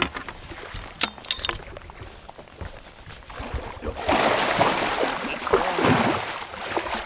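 A few sharp clicks, then about four seconds in a hooked muskie thrashes at the surface beside the boat, with loud, sustained splashing.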